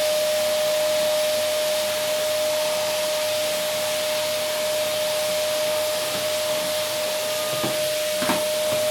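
Vacuum cleaner running steadily: an even rushing hiss with a constant high whine, and a couple of brief knocks near the end.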